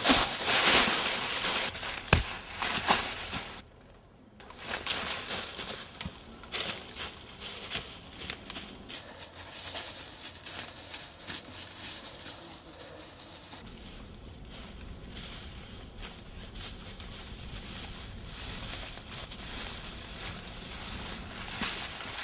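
Crunching, crackling rustle of dry leaves and undergrowth, with a sharp click about two seconds in.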